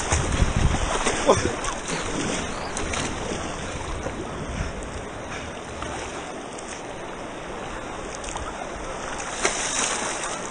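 River water rushing and splashing along a down river kayak as it is paddled, with a heavier low rumble in the first few seconds that then settles to a steady wash.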